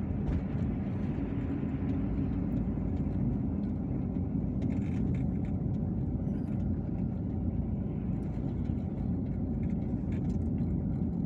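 Steady engine and tyre noise of a car driving downhill, heard from inside the cabin.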